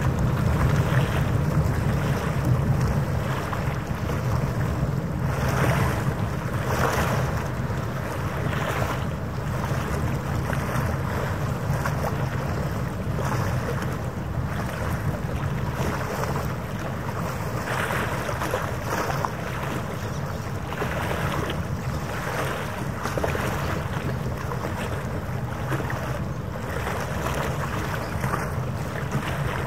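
Harbour water lapping and wind in gusts on the microphone, over the steady low hum of a boat engine running out on the water.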